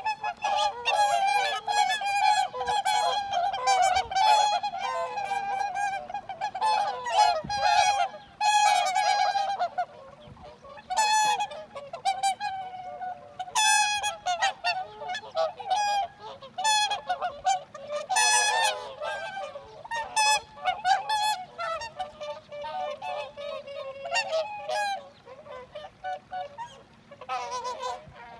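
A flock of whooper swans calling: many overlapping honking calls, dense at first and thinning to scattered calls near the end.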